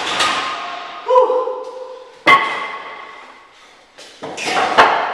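A loaded barbell clanking into the hooks of a steel power rack, with short metallic ringing after the hits, and wooden press boards knocking down on a concrete floor near the end. There are four or five sharp hits in all.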